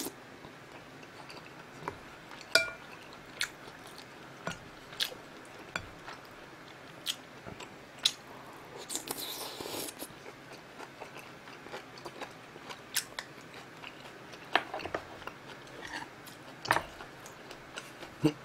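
A man chewing and eating close to the microphone, mouthfuls of kimchi stew with pieces of pork rib: scattered sharp mouth clicks and smacks every second or so, with a longer noisy stretch about nine seconds in.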